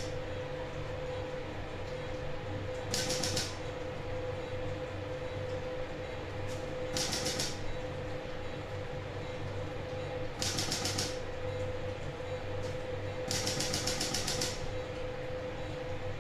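Intracorporeal lithotripter firing at a urinary stone to break it into fragments: four short bursts of rapid clicking a few seconds apart, the last one longest, over a steady equipment hum.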